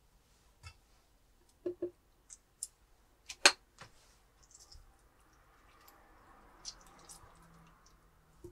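A series of sharp clicks and knocks of hard objects, the loudest about three and a half seconds in, then a faint steady hiss with a few lighter clicks.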